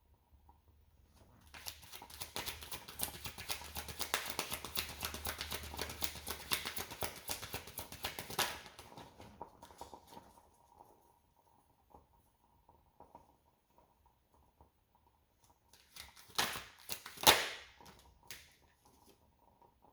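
A deck of reading cards being shuffled by hand: a dense, rapid run of card flicks for about seven seconds. Later come a few sharp snaps of cards.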